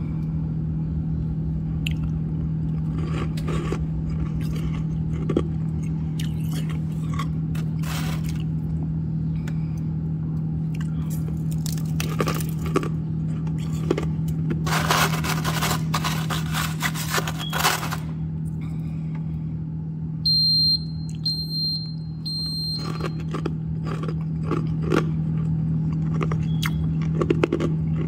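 Freezer frost ice crunching and scraping, in scattered crisp crunches with a dense stretch of crunching about halfway through, over a steady low hum. About three-quarters of the way in come three short high beeps.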